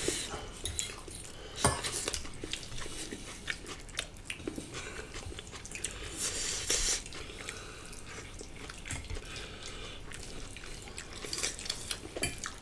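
Close-up sounds of people eating: chewing, with scattered short clicks of a fork against a plate.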